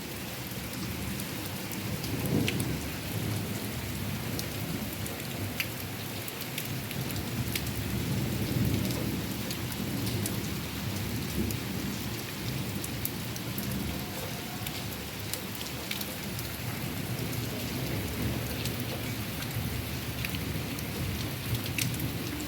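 Steady rain falling, with many sharp drop hits, and low thunder rumbling that swells about two seconds in and again about eight seconds in.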